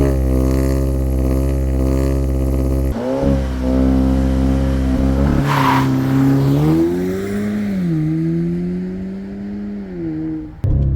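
Audi S3's 2.0-litre turbocharged four-cylinder engine pulling hard under full-throttle acceleration, its note broken twice by gear changes about three and five and a half seconds in.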